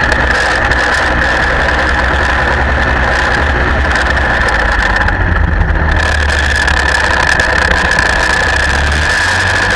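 A gyroplane's engine and propeller running at low power during the landing rollout, with air rushing past the mount, heard from a camera beside the main landing-gear wheel. A steady high whine sits over a low drone, and the drone drops a little near the end.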